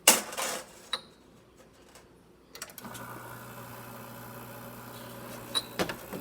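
Quick Mill Andreja espresso machine starting a shot: a metallic clunk, then about three seconds in its vibratory pump starts and runs with a steady hum as it pushes water through the group. A couple of sharp clicks sound near the end.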